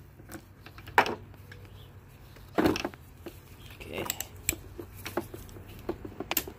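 A hand ratchet with a 14 mm socket on a swivel, clinking and knocking as it is worked on a serpentine belt tensioner bolt. A few sharp metal knocks, the loudest about a second in and again near three seconds, with lighter ticks later.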